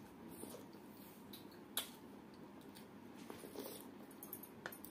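Quiet chewing and wet mouth sounds of someone eating fermented water rice by hand, with faint crackles and two sharp clicks, about two seconds in and near the end.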